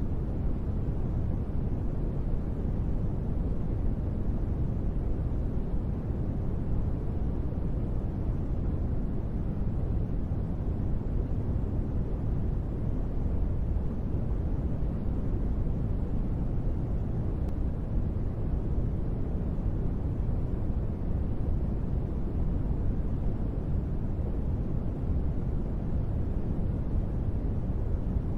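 Steady, unchanging noise for sleep, deep in tone, with most of its energy in the bass and only a faint hiss above.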